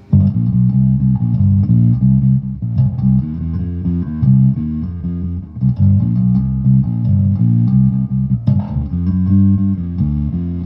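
Electric bass riff played through a Peavey 400 series bass amp head and an 8x10 'fridge' speaker cabinet, with the amp in parallel mode so the signal drives both the normal and harmonics channels. Deep, loud notes with short breaks about two and a half seconds in and again near the eight-and-a-half-second mark.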